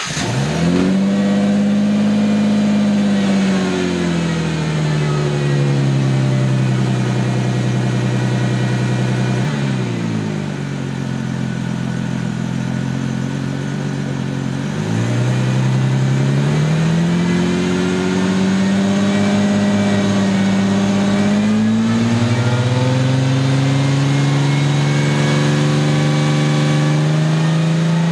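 Ford 3.8 L V6 Mustang engine fast-idling just after a cold start, still in cold enrichment and not yet down to its final idle. Its speed sags over the first few seconds, drops lower for a while in the middle, then climbs back and holds steady.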